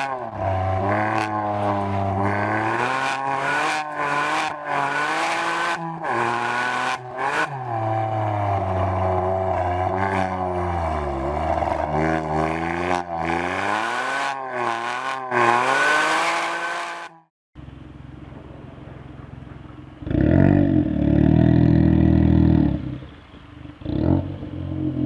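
Ford Fiesta 1.0 EcoBoost's turbocharged three-cylinder engine heard through a Martelius race cat-back exhaust, pulling up and dropping back in pitch again and again. After about 17 seconds it cuts to another take: loud revving held for a couple of seconds, then shorter blips near the end.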